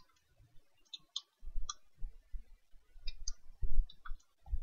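Computer keyboard being typed on: slow, irregular key clicks and soft key thumps with short pauses between.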